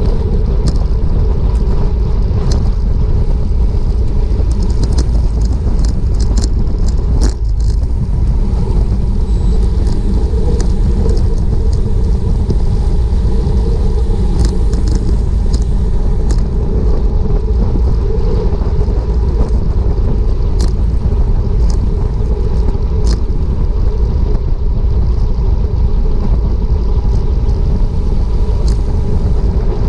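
Wind rushing over the microphone of a handlebar-mounted action camera on a road bike at about 27 mph, a loud, steady low rumble. A few sharp clicks sound here and there.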